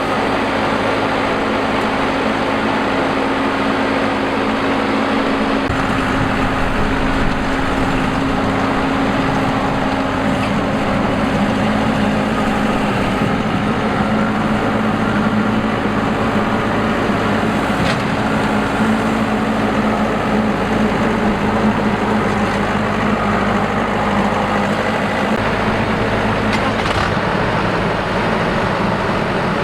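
Combine harvester's engine running steadily in a rice paddy. Its engine note shifts slightly about six seconds in and again around twelve seconds.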